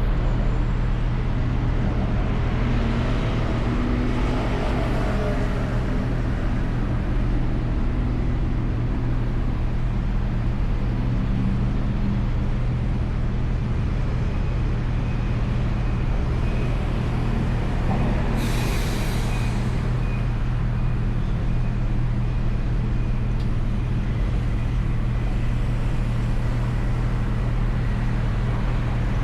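Steady city traffic noise: engine and road hum from moving vehicles. About two-thirds of the way through comes a short, sharp hiss from a heavy vehicle's air brakes.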